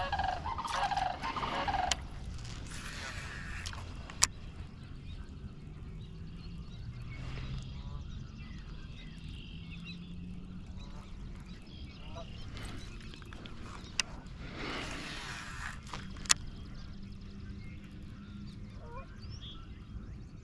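Geese honking several times at the start, then a steady low background with three sharp knocks spread through the rest.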